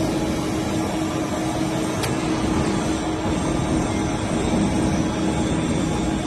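Rubber two-roll mixing mill with its automatic stock blender running: a steady industrial drone with one held tone, and a faint tick about two seconds in.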